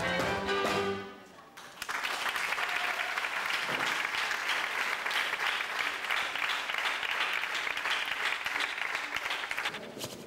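A live folk band of fiddle and double bass plays the last notes of its tune, stopping about a second in. Then an audience applauds steadily for about eight seconds, fading near the end.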